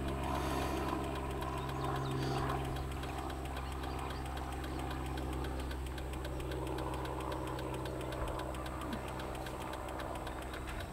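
An engine idling steadily, with a low hum and a fast, even ticking over it.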